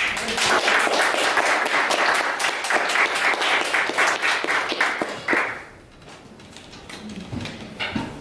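A small audience applauding in a room. The clapping dies away after about six seconds.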